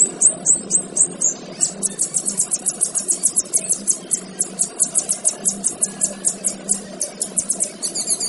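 Male kinoy bird singing a long run of high, sharp repeated notes, about six to eight a second. The first few notes slur downward, and the rest are quick clipped chips.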